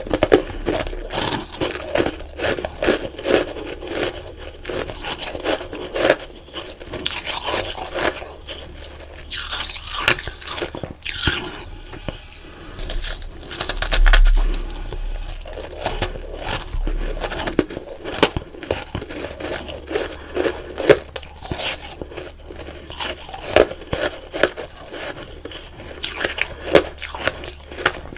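Packed powdery ice being bitten and chewed right at the microphone: dense, irregular crunching and crackling throughout, with the loudest bite about halfway through.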